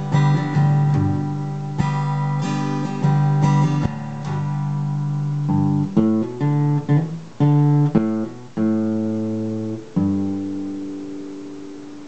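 Epiphone acoustic guitar playing the song's closing instrumental: strummed chords, then a short picked run of single notes and chords, and a last chord about ten seconds in that is left to ring and fade away.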